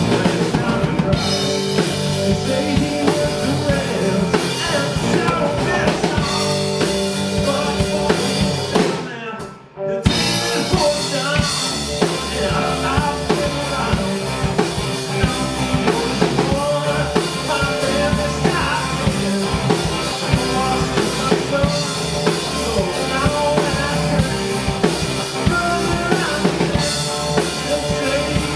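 Live band playing at full volume: drum kit with snare and bass drum, electric guitars and bass guitar. About nine seconds in the music drops out briefly, a short stop, then the whole band comes straight back in.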